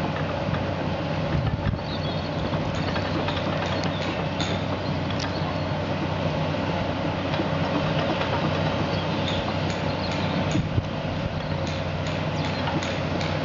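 Tracked excavator's diesel engine running steadily as the machine travels, with scattered clanks from its moving tracks.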